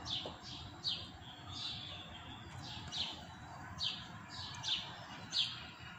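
A bird chirping: short, falling chirps repeated about once a second.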